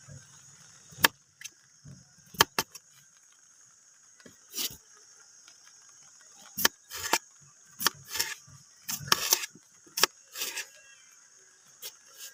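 Small kitchen knife cutting a cucumber on a wooden cutting board: a dozen or so sharp, irregular taps as the blade goes through and strikes the board.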